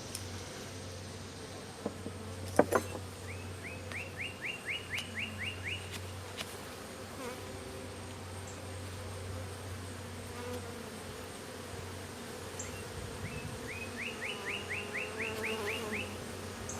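Honeybees buzzing steadily around an open, crowded hive. A sharp double knock sounds about two and a half seconds in, and twice a quick run of about ten short rising chirps is heard.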